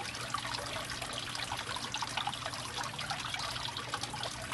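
Water trickling steadily into a tub.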